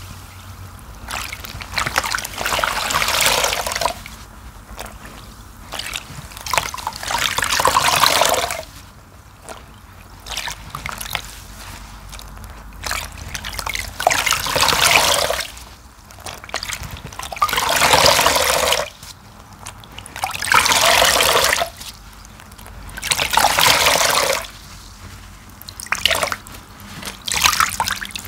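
A soapy sponge squeezed and wrung out in a basin of water, over and over: each squeeze sends water trickling and splashing back into the basin for a second or two, every few seconds.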